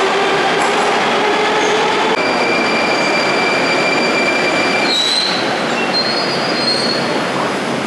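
Moscow Metro electric trains at the platform: first a train running past with a dense rumble and a slightly falling motor whine, then, after an abrupt change about two seconds in, a train coming into the station with a steady high whine and brief high squeals near the end as it slows to a stop.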